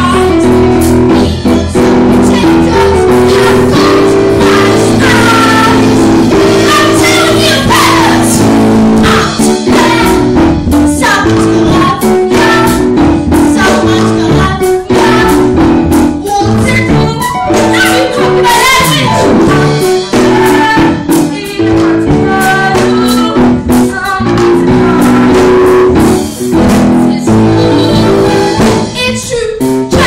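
A song from a stage musical: cast voices singing over lively instrumental accompaniment.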